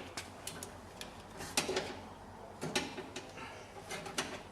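Scattered light clicks and knocks as a car door latch assembly and its linkage rods are handled and worked into place inside the door.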